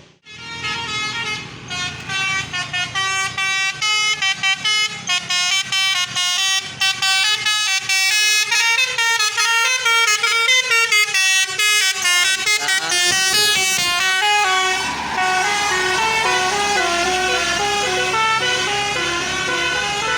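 A bus's telolet Basuri musical horn plays a fast tune of short stepped notes. Several horn tones sound together on each note. The tune dips briefly about three-quarters of the way through, then carries on.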